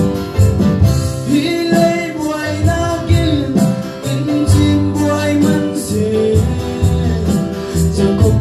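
A man singing a gospel song into a microphone over amplified instrumental accompaniment; his voice comes in about a second in.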